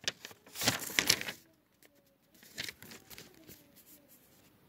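Rustling and scraping handling noise close to a phone's microphone, loudest for about the first second and a half, then much quieter with only faint scattered rustles.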